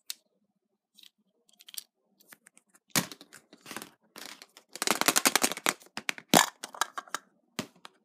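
Hard plastic toy egg being handled and pried open on a table: scattered clicks and knocks, a fast run of plastic clicking about five seconds in, and a sharp snap a little after six seconds.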